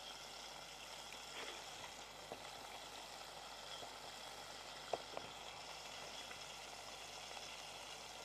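Faint, steady sizzle of chicken strips frying in hot oil, with a couple of light clicks about five seconds in.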